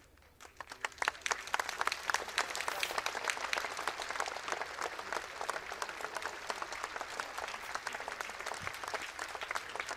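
A crowd applauding: the clapping starts about half a second in, builds within a second and carries on steadily.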